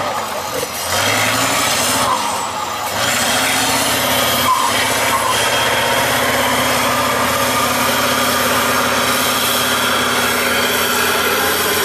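Tatra 815 trial truck's diesel engine running hard under load as it climbs a steep dirt slope. The sound dips briefly twice in the first three seconds, then holds steady and loud.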